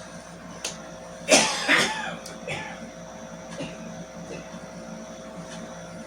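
A man's morning smoker's cough: two loud coughs in quick succession about a second in, then a few weaker coughs and throat-clearing sounds.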